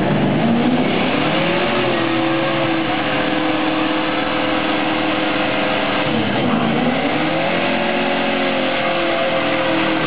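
A Dodge Charger's engine revved hard and held at high revs during a burnout, its rear tyres spinning on the pavement. The revs drop briefly as the throttle is lifted about six and a half seconds in, then climb and hold again.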